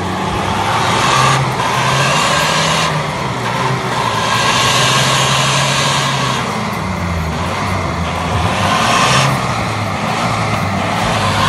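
Four-wheel-drive SUV's engine revving up and down as it crawls through a muddy, water-filled rut. Over it is a rushing hiss that comes and goes.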